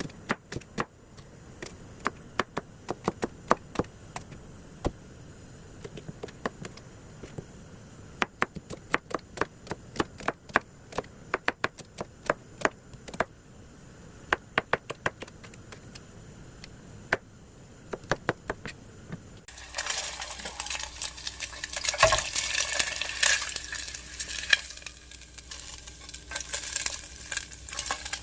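Irregular sharp clicks and knocks of kitchen work with utensils for most of the stretch. Near the end it changes suddenly to food sizzling and being stirred in a hot frying pan, over a steady low hum.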